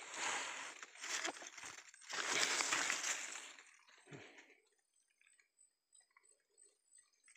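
Dry leaf litter rustling and crackling as the shot rat is grabbed and lifted out of it: two long stretches of rustling, the second about two seconds in and the loudest, then only faint scattered rustles.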